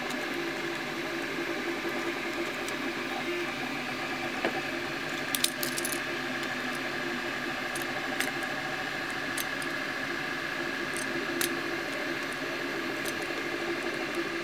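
Scattered light clicks and taps of hard 3D-printed plastic parts and steel locking pliers being handled as a nut is fitted and gripped, a small cluster about halfway and single clicks later, over a steady background hum.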